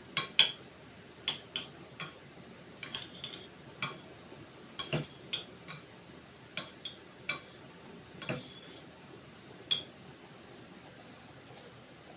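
A utensil clinking against a cooking pot as noodles are stirred: irregular sharp clinks, a dozen or so, that stop about ten seconds in.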